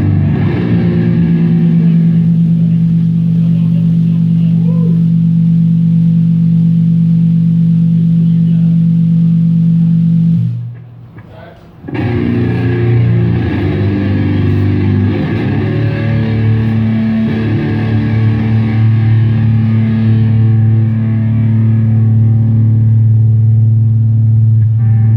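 Live band sound check: electric guitar and bass through a PA, holding long sustained low notes. It breaks off about ten seconds in and starts again a second or so later on a different held chord.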